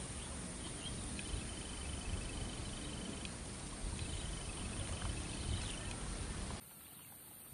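Outdoor field ambience: a steady low rumble of wind on the microphone with an insect buzzing high and thin twice, each time for about a second and a half. The whole sound drops abruptly to a quieter background near the end.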